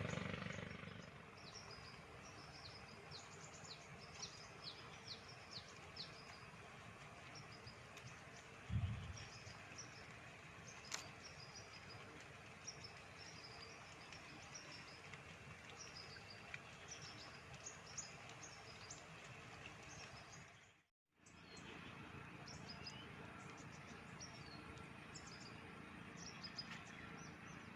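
Faint outdoor ambience with many short, high chirps repeating throughout, and one dull thump about nine seconds in. The sound drops out completely for a moment about 21 seconds in.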